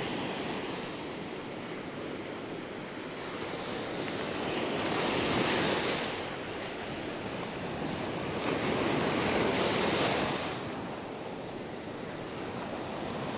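Ocean surf breaking and washing up a sandy beach. Two waves swell louder and fade, one about five seconds in and another about nine seconds in.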